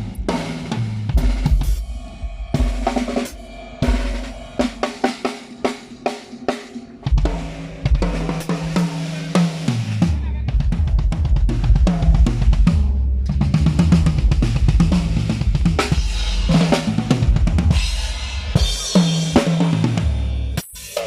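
A live drum kit played in a driving groove with fills: kick drum, snare, hi-hat and cymbal crashes, with pitched bass notes changing underneath.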